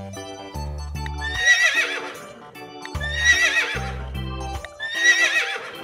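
A horse whinnying three times, each call about a second long with a shaky, wavering pitch, over background music.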